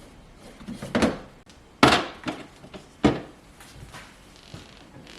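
Meal-prep containers being put away: a few separate clunks and knocks as they are set down, the loudest about two seconds in, with lighter clicks between.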